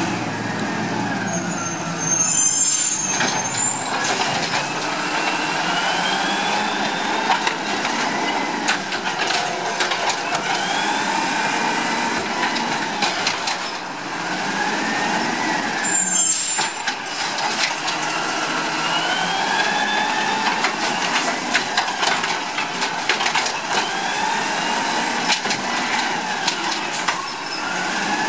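Peterbilt 320 garbage truck with an Amrep automated side-loader body pulling up to curbside bins, its diesel engine revving up and down every few seconds. Air brakes hiss about two and a half seconds in and again about halfway through.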